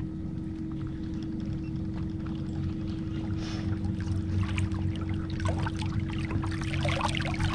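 Bow-mounted electric trolling motor running with a steady, even whine and low hum, moving the boat. Over the last couple of seconds, crackly splashing of water grows louder on top of it.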